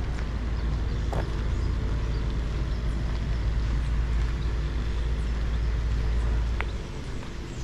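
Street ambience with a steady low rumble of traffic, which drops off near the end, and a few faint short ticks and chirps over it.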